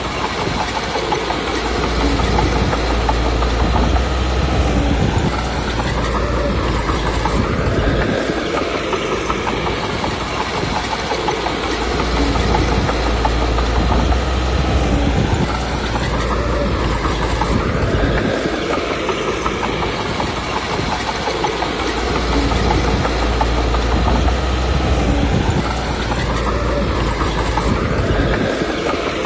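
Komatsu D21P crawler bulldozer working: its diesel engine runs under load and the steel tracks clank without a break. The engine swells and eases in cycles roughly every ten seconds as the machine pushes and backs off.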